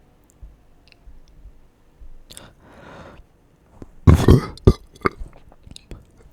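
A person burping: one loud, rough belch about four seconds in, after a softer breathy sound, followed by several short wet mouth clicks.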